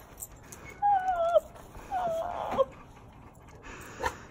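A dog whining twice, about a second in and again about two seconds in. Each is a high, wavering whine that slides down in pitch and lasts about half a second.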